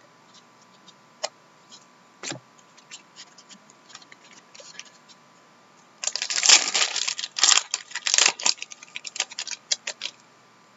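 Trading cards being handled and flicked through, giving scattered light clicks; about six seconds in, a foil card pack wrapper crinkles and tears loudly for two or three seconds, then tapers back into card clicks.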